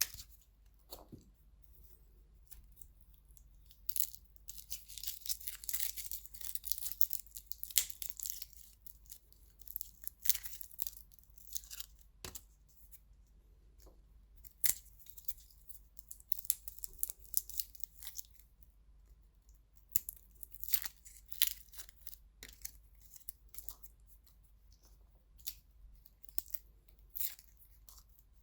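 Garlic being peeled by hand: dry papery skins crackling and tearing in irregular bursts, with short sharp snaps as cloves are pried loose and quiet pauses between.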